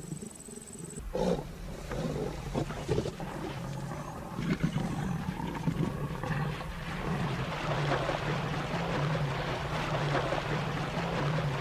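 Lions growling and snarling, with several sharp, loud snarls in the first few seconds, then a continuous rough growl over splashing water in the second half.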